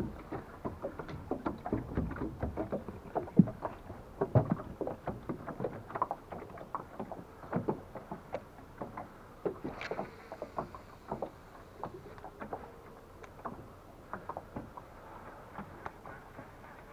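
Small waves lapping and slapping irregularly against the hull of a drifting aluminium boat, a quick uneven run of knocks and splashes that thins out near the end.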